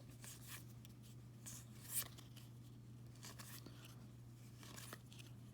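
Faint rustling and soft clicks of trading cards being slid and flipped in the hand, with one louder flick about two seconds in, over a steady low hum.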